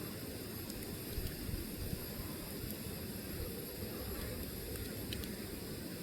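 Burning wood fire: a steady low rush of flame with a faint hiss and a few faint crackles.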